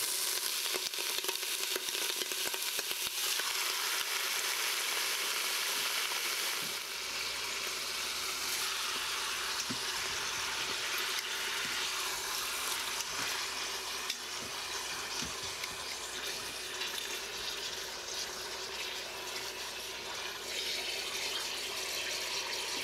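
Soy-sauce-coated pork steaks sizzling in hot sesame oil in an Instant Pot's stainless steel inner pot on sauté: a steady frying hiss as the meat browns, a little quieter after about seven seconds, with a few faint clicks of metal tongs turning the meat.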